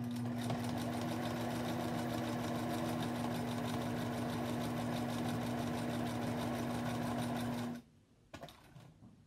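Electric sewing machine running a straight stitch through layers of quilt cotton, a steady motor hum with rapid, even needle strokes. It stops suddenly near the end.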